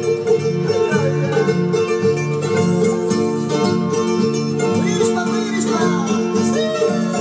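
Instrumental music with plucked string instruments, in a country or bluegrass style, playing steadily.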